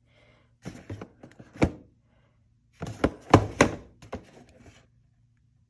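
Objects being handled and set down on a hard surface: two clusters of knocks and clatter, the first about a second in and a louder one about three seconds in.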